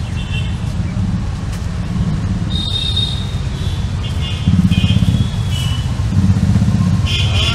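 Street traffic: motor vehicles running past with a steady low rumble that swells about halfway through.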